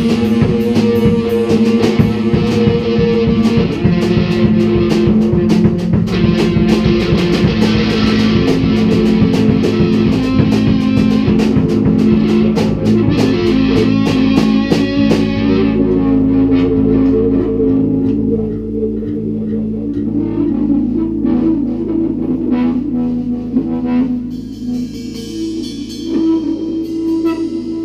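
Improvised psychedelic rock jam by electric guitar, bass guitar and drum kit. The drums play busily with cymbals for about the first half, then drop away to sparse hits under held guitar and bass notes.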